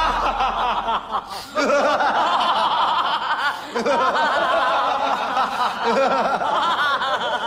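A group of men and a woman laughing together, several overlapping laughs with brief lulls about a second and a half in and again near four seconds in.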